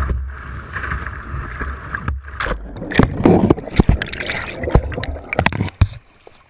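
Whitewater rushing around a kayak, with wind rumbling on the microphone, then a run of sharp knocks and splashes over about three seconds as the kayak goes over on the rapids. The sound drops suddenly to a faint hiss near the end.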